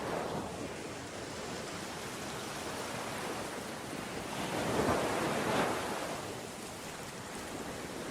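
Ocean waves: a steady rush of surf, with one wave swelling louder and washing in about halfway through.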